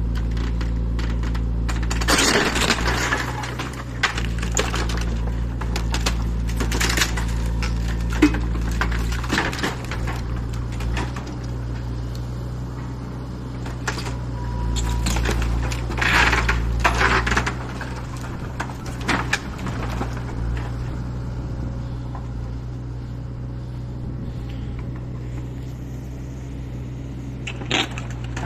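Compact excavator's diesel engine running steadily while its grapple tears apart a timber house: repeated cracking and splintering of boards, with debris clattering down. The loudest crashes come about two seconds in and again around sixteen seconds.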